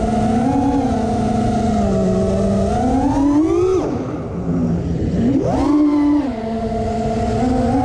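FPV racing quadcopter's brushless motors and propellers whining, heard close from on board. The pitch climbs about three seconds in, then drops away as the throttle is cut for a roll. It comes back sharply and rises as the quad powers out, then settles to a steady cruise.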